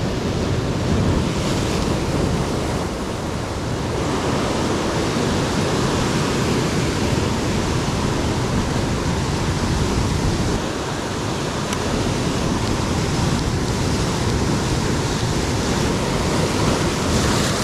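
Sea surf breaking and washing over a rocky shore in a steady rush.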